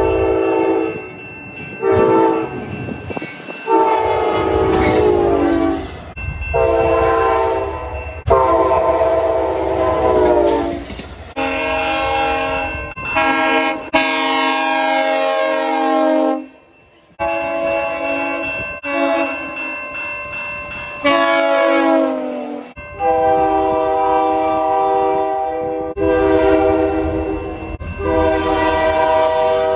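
About a dozen train horn blasts edited back to back, each a chord of several notes held for one to a few seconds. In several of them the pitch drops as the train passes. A low rumble of the moving train runs under many of the blasts.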